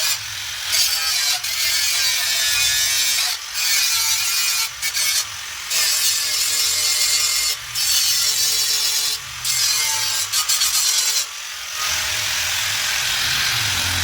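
CO2 (MIG) welder arc crackling and hissing on steel chassis metal, cutting off and restarting in short runs about eight times.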